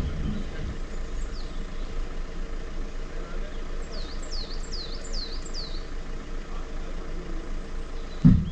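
Off-road vehicle engine idling steadily. About four seconds in, a bird gives a quick run of five high, downward-sliding chirps, and there is a single thump near the end.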